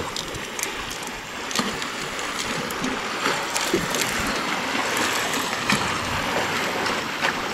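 Choppy lake water lapping and splashing against the hull of a plastic kayak: a steady wash with scattered small clicks and knocks.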